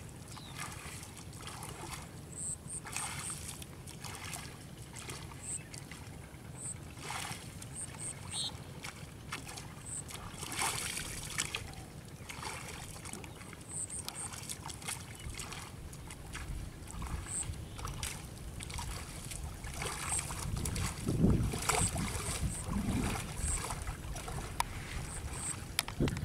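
Shallow water splashing and sloshing in irregular bursts as hands and legs move through a flooded rice paddy. In the last third, wind rumbles on the microphone.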